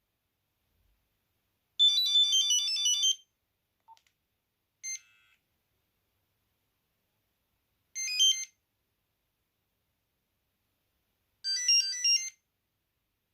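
Nokia 8210 monophonic ringtones playing in short snatches of quick, high beeping melody. There are four bursts, from about half a second to a second and a half long, with silence between them.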